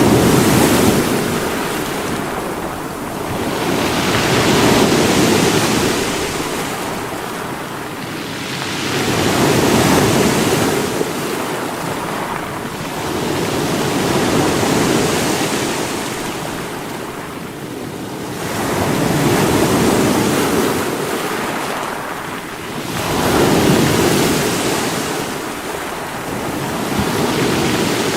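Sea waves breaking on rocks, the surf swelling and falling back about every five seconds in a continuous rushing wash.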